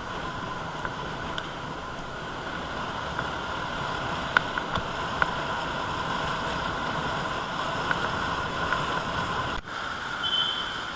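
Scooter riding along: steady engine, road and wind noise with a few small knocks and clicks, broken by an abrupt cut about nine and a half seconds in.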